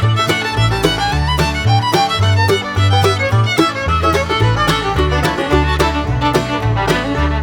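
Background music: a fiddle-led tune over a pulsing bass line.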